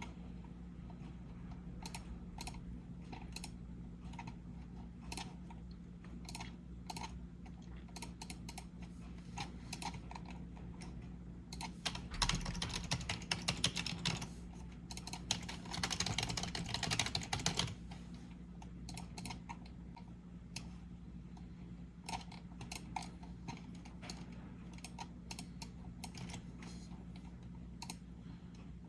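Typing on a computer keyboard: scattered key clicks, with two fast runs of typing about halfway through, over a low steady hum.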